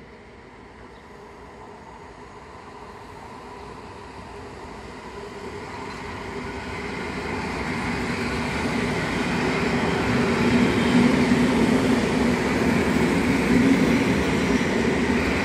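Electric multiple unit train approaching and passing close by, growing steadily louder and loudest over the last few seconds. Wheels rumbling on the rails with a steady hum from its drive underneath.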